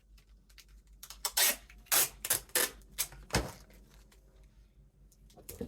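Packing tape being pulled off the roll and torn into short strips: a quick series of short rips and clicks clustered about a second into the sound, with quieter handling ticks around them.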